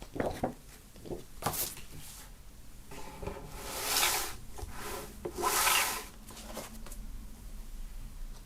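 Cardboard and paper of a vinyl LP's packaging rubbing as it is handled: a few short scrapes, then two longer sliding rubs a little over a second each.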